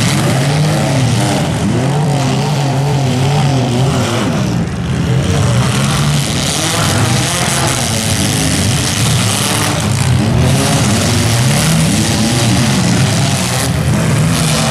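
Several demolition-derby compact cars' engines revving up and down at once, their pitches rising and falling over one another, loud and continuous.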